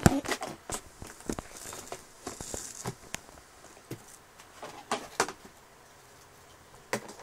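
Hard plastic toy baby-carriage parts knocking and clicking as they are handled and fitted together, in scattered sharp knocks that are busiest in the first second and again about five seconds in.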